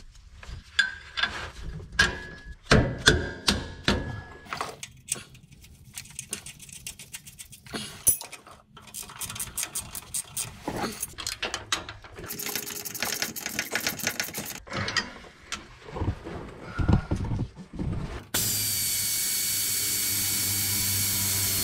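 Tightening the sway bar end link on an RV's rear suspension. There are scattered metal clicks and clinks of a hand wrench, then a quick run of ratchet clicking, and then, for the last few seconds, a power tool running steadily.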